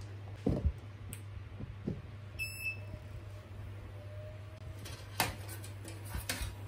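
Light knocks and clicks of hands handling a 3D printer's frame, wiring and LED strip. A single short electronic beep comes about two and a half seconds in, over a steady low hum.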